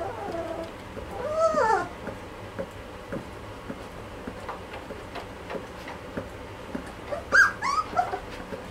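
Two-and-a-half-week-old Belgian Malinois puppies whimpering and squeaking: short rising-and-falling whines, the loudest about a second and a half in, and a quick cluster of high squeals near the end.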